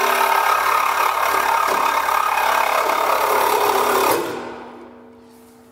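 Cordless reciprocating saw cutting through the metal top of a lift-controller housing to shorten it, running steadily, then stopping about four seconds in.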